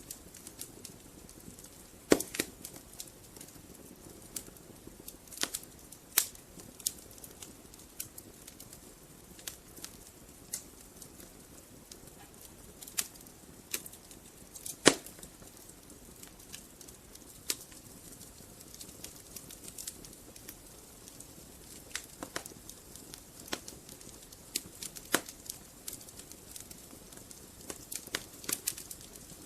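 Wood fire burning in a fireplace: logs crackling and popping in irregular sharp snaps over a soft steady hiss, with the two loudest pops about two seconds in and about halfway through.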